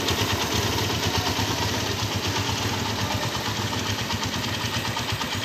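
Honda Tiger Revo's single-cylinder four-stroke engine idling steadily through its original Orion exhaust, with an even, smooth beat that is not harsh.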